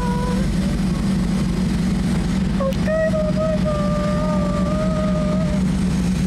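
Steady low drone of a car ferry's engines heard from the open deck as the ship gets under way, with a voice calling out a long drawn-out 'bye-bye' about three seconds in.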